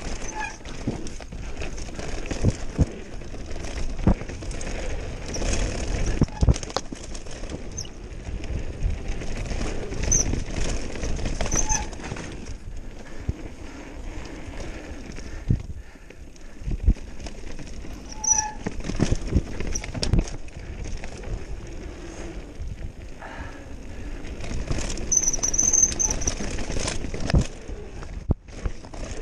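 Mountain bike descending a dirt trail at speed: tyres running over dirt and the bike rattling, with irregular knocks over bumps and roots and a few short high squeaks.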